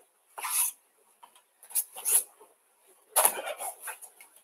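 Rustling and swishing of a judo throwing dummy's cloth jacket being gripped and swung, with bare feet brushing the tatami, during repeated uchi-mata entries. It comes in several short bursts, the longest and fullest a bit after three seconds in.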